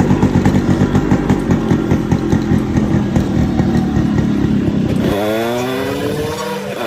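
Yamaha RX100's single-cylinder two-stroke engine heard through its exhaust: a loud, rapid, crackling exhaust note. About five seconds in, the low pulsing thins out and the engine's pitch climbs as the revs rise.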